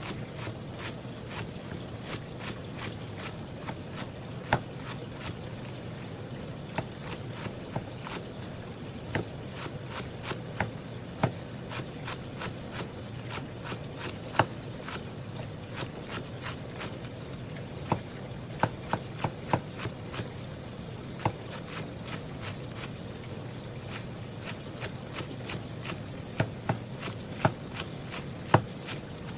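Kitchen knife chopping green onions (negi) on a cutting board: rapid, uneven taps, several a second, with louder knocks now and then. A steady low hum runs beneath.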